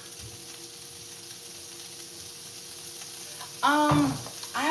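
Sliced beef kielbasa and red pepper frying in a pan, a steady sizzle. A brief voice sound comes near the end.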